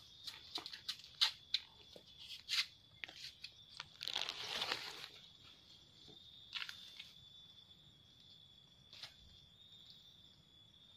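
Footsteps crunching and cracking dry bamboo leaf litter and twigs, with brushing through undergrowth. Busy in the first five seconds, then only a few scattered cracks. A steady high insect whine runs beneath.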